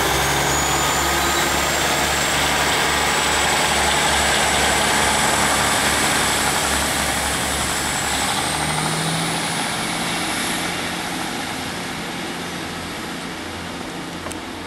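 Class 150 Sprinter diesel multiple unit pulling away, its underfloor diesel engines running with a deep throb and a thin high whine that rises in pitch about eight seconds in. The deep engine note drops away there and the sound fades as the train moves off.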